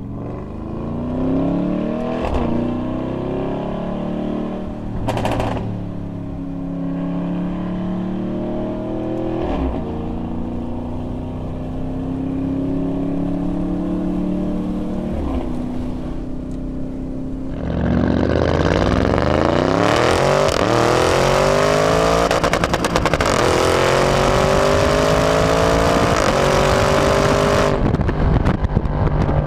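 Lamborghini Urus twin-turbo V8 with a Capristo cat-back exhaust under acceleration on board: engine pitch climbs and drops back at upshifts every few seconds, with short sharp cracks at some shifts. About 18 seconds in it turns much louder in a full-throttle run, the pitch climbing steeply through several more upshifts.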